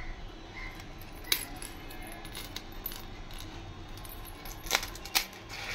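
Silver anklet chains and their small bell charms clinking and jingling as they are handled, with a few sharp metallic clinks: one about a second in and two close together near the end.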